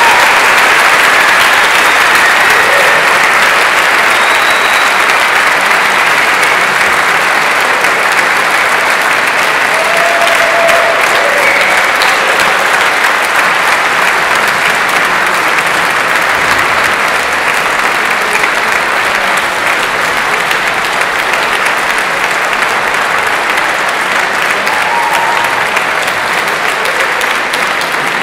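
Audience applauding steadily for the whole stretch, easing off slowly toward the end.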